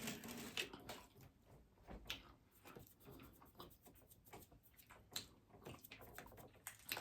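Faint, irregular crunching and chewing of hard-shell tacos: a scatter of small crisp clicks and cracks.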